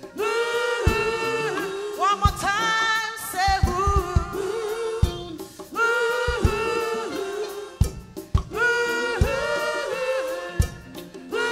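Live gospel music: a woman's lead vocal singing phrases with backing singers and a band, with regular drum hits beneath.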